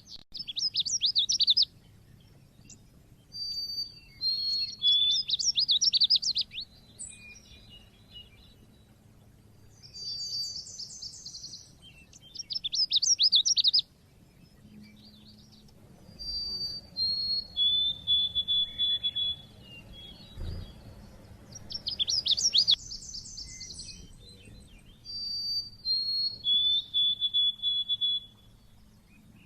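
Pleci (white-eye) singing. Bursts of rapid, high chirping trills alternate with short, clear whistled notes, repeated in phrases every few seconds.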